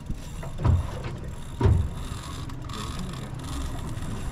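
Low, steady rumbling noise aboard a small boat at sea, with two dull thumps about a second apart near the start.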